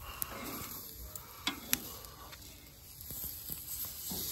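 Chicken sizzling on the grate of a charcoal grill, with a few sharp clicks in the first two seconds; the sizzle grows louder near the end.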